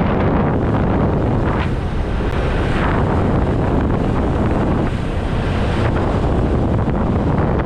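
Wind buffeting the built-in microphone of a helmet-mounted GoPro Hero 8 on a moving motorcycle: a steady, loud rumble of wind noise with road and traffic noise beneath it.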